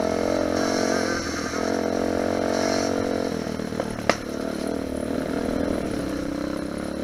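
Lifan 250 four-stroke pitbike engine running under way at fairly steady revs, easing off briefly about a second in and again past the middle. A sharp knock sounds about four seconds in.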